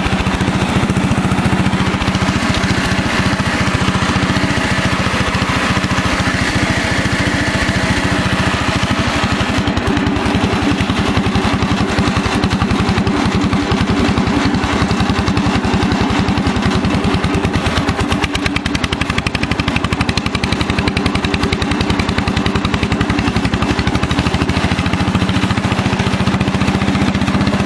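Cub Cadet 100 garden tractor's single-cylinder Kohler engine running hard, driving up a steep hill, its rapid firing steady throughout.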